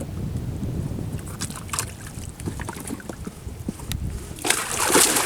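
Wind rumbling on the microphone with scattered small splashes and knocks. About four seconds in, a loud rush of splashing water starts suddenly.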